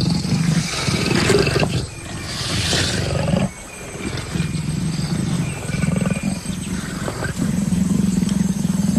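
Two big cats, a male and a female, growling and snarling at each other in a low, rough, continuous rumble that dips briefly a few seconds in. It is the female's submissive snarling to a dominant male at their first encounter before mating.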